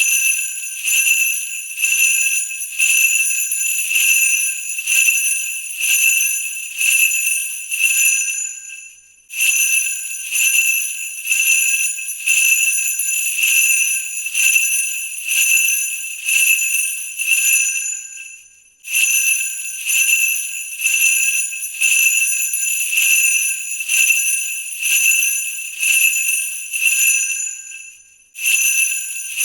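Sleigh bells shaken slowly, about one shake a second, each shake setting off a bright jingling ring. Every nine to ten seconds the jingling dies away and starts up again.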